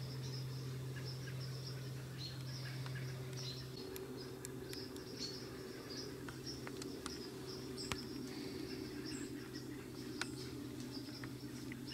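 Evening field ambience: insects trill steadily, with scattered short bird chirps and a few faint clicks over a steady low hum.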